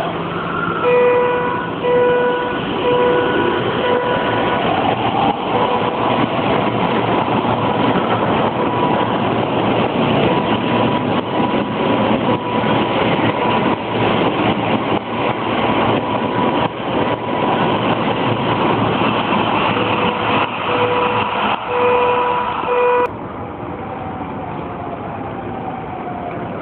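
Keio 6000-series express train running through the station at speed without stopping: a loud, steady rush of wheels and air for about twenty seconds, with a repeated beeping warning tone near the start and again near the end. After a cut, a quieter Toei 10-300 local train pulling in, its motor whine falling in pitch as it slows.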